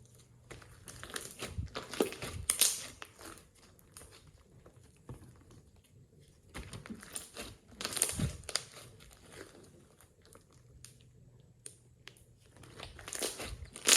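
Slime being squished and worked by hand, a crackly, sticky handling noise in three bouts of a couple of seconds each, with quieter pauses between.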